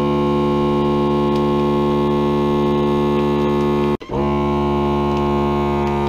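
FoodSaver vacuum sealer's pump motor running with a steady hum, drawing the air out of a bag. It breaks off for an instant about four seconds in and starts again.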